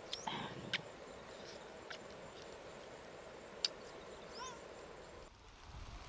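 Baby corn husks being stripped by hand, with a few sharp snaps, over a faint steady outdoor background. A short high chirping animal call, a quick falling series, comes about four and a half seconds in.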